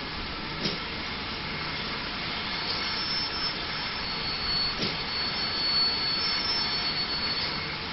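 Steady rushing hiss of steam from a GWR 0-6-0 pannier tank locomotive, with faint high thin tones from about three seconds in and a couple of short clicks.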